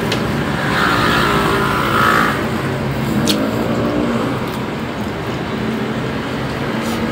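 Motor vehicle traffic: a vehicle passing by over a steady hum of road noise, with a few faint clicks.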